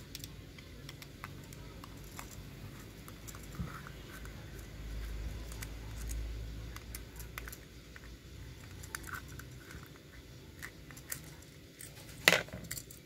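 Light, scattered clicks and taps of small metal parts of an OKO 28 mm flatslide carburetor being handled as its slide is taken out, with one sharper knock near the end.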